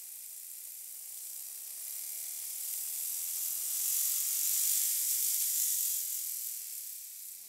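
Chevrolet 4.8 L V8 in a Silverado revving under full throttle on a chassis dyno, its pitch climbing steadily through the pull under a loud hiss, then easing off near the end. It is a pull with extra ignition timing dialled in to try to provoke knock.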